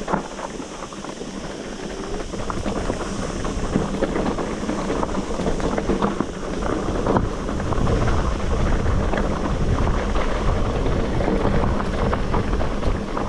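Mountain bike rolling over a rocky gravel trail: tyres crunching and the bike rattling over stones, with wind rumbling on the microphone. The rumble and rattle grow louder about seven seconds in.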